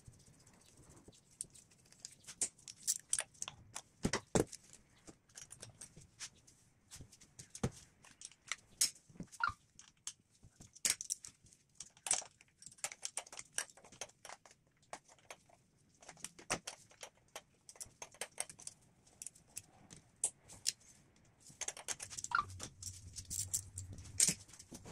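Irregular metallic clicks, clinks and knocks of hand tools and loose parts being handled in a car's engine bay, from work undoing the screws and hoses of a diesel engine's EGR valve to remove it.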